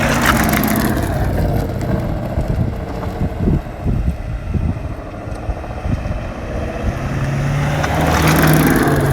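2016 Ford Shelby GT350 on the move, its 5.2-litre flat-plane-crank V8 and road noise heard with a ticking from the rear axle that comes on while cornering; the engine grows louder from about seven seconds in. The owner never traced the cause of the tick.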